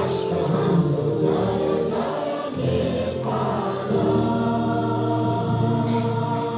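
A group of voices singing one melody together in chorus, with long held notes, as at a school assembly.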